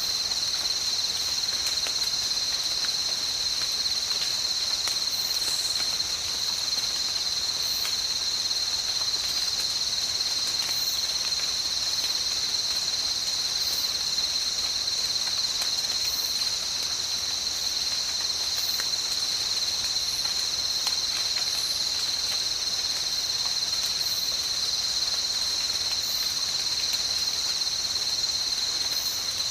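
Dense insect chorus: a steady high-pitched buzzing trill that never lets up. Beneath it is a soft even hiss of light rain with faint scattered ticks, and small high chirps come every second or two.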